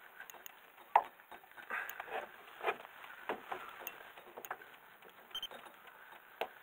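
Faint, irregular clicks and rustles of a spinning reel being wound in with a fish on the line, with light handling noise of gear in a small boat.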